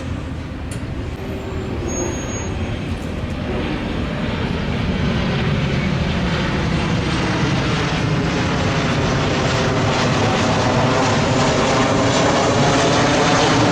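An airliner flying low overhead, its engine noise growing steadily louder.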